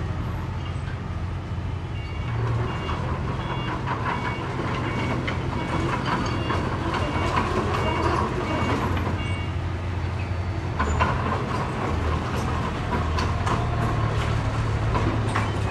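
Heavy diesel earth-moving machinery running steadily, with scattered knocks and clanks. For several seconds at a time there are series of short, evenly spaced high beeps.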